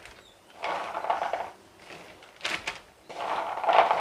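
Plastic bag crinkling as turkey berries are handled in it, in two rustling stretches with a few small clicks between them.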